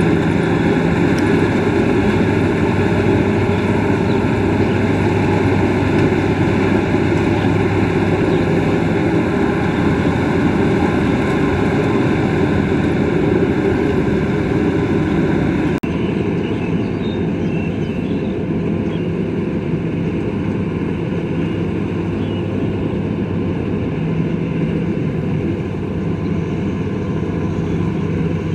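Combine harvester running steadily, a continuous loud machine drone with a low hum. About halfway through the sound changes abruptly and carries on a little quieter.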